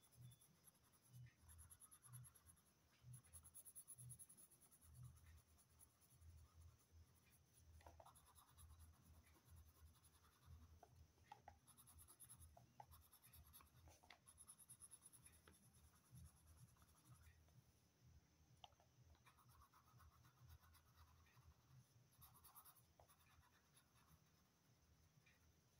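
Faint scratching of a coloured pencil shading on paper, coming and going in short back-and-forth strokes.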